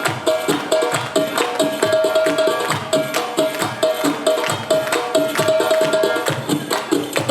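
Arabic drum-solo music for belly dance: fast, dense darbuka (Arabic tabla) strokes in a driving rhythm, with a repeated melodic line over them.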